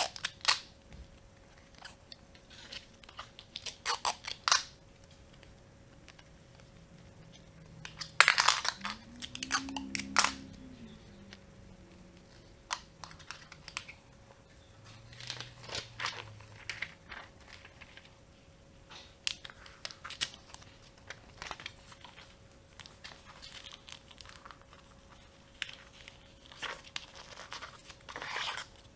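Paper rustling and crinkling as rolled paper tubes are handled, with clear adhesive tape torn off in short rips. The noises come in scattered bursts, the loudest about eight seconds in.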